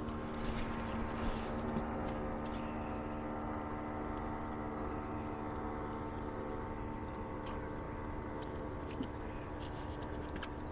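A boat motor running steadily: a held hum made of several steady tones over low wind and water noise, with a few faint clicks.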